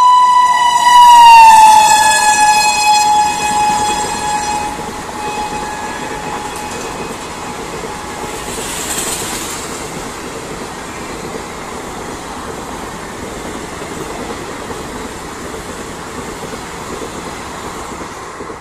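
Electric locomotive's horn sounding in one long blast, its pitch dropping as the locomotive passes and then fading out. The passenger coaches follow, running past with a steady rush of wheels on rail that slowly grows quieter.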